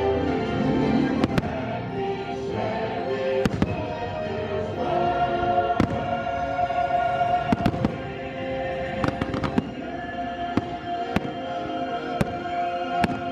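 Fireworks bursting in an irregular string of sharp bangs over the show's soundtrack music, which plays held chords.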